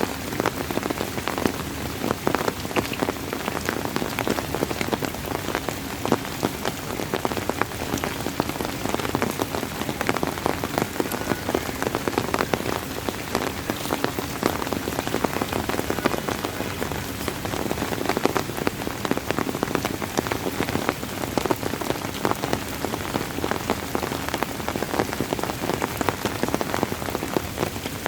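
Steady rain: an even hiss thick with the ticks of individual drops landing.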